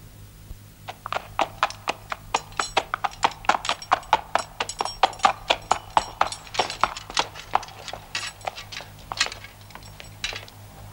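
Horse hooves clopping on hard ground in a quick, irregular run that builds from about a second in, is loudest midway and thins out near the end, over a low steady hum.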